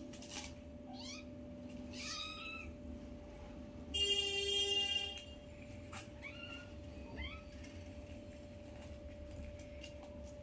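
Kittens mewing: a few short, high, squeaky mews scattered through, and one louder, longer cry lasting about a second, a little before the middle.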